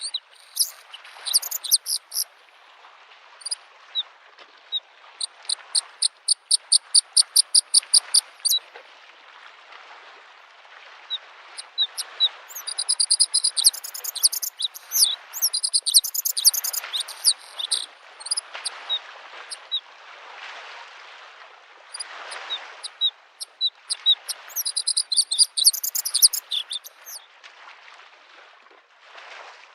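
Bluethroat singing in bouts over the steady wash of small lake waves lapping the shore: a fast run of repeated notes, about five a second, then longer jumbled twittering phrases.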